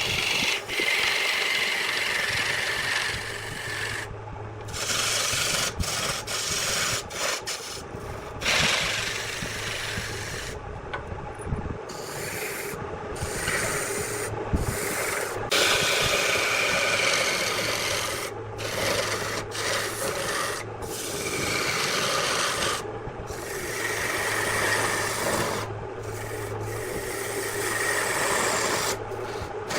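Wood lathe running while a turning tool scrapes and cuts the spinning wood: a continuous rasping hiss over the steady hum of the lathe, breaking off abruptly many times for a moment.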